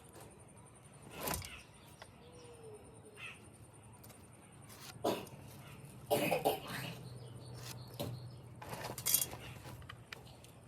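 Intermittent knocks and scrapes of hand work on wood: a few sharp strikes spaced several seconds apart, with a low steady hum joining about six seconds in.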